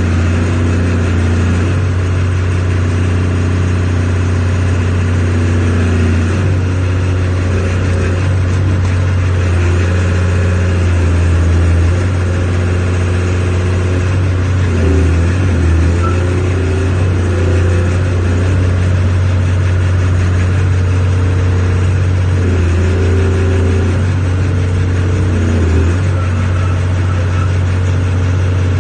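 125B hydraulic excavator's diesel engine running steadily, heard from the operator's seat, its note shifting a little a few times as the boom and bucket are moved.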